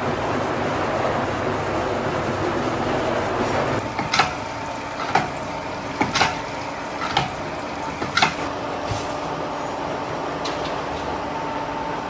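Large drum ball mills and their belt-and-pulley drive running: a steady mechanical noise. From about four seconds in, sharp knocks come about once a second for several seconds over a faint steady hum.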